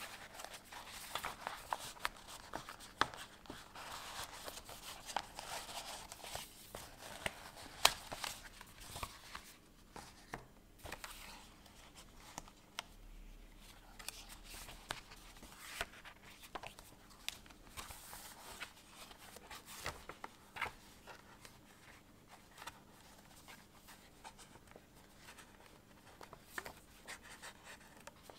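Hands handling a Midori Traveler's Notebook and its paper inserts: pages turning and rustling, with scattered small clicks and taps of paper and cover, the sharpest about eight seconds in.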